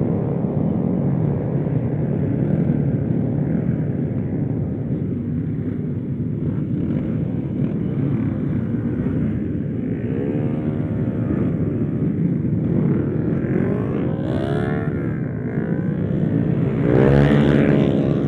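Motorcycle engine running under way, its pitch rising and falling several times as the throttle is worked, with the loudest rev near the end.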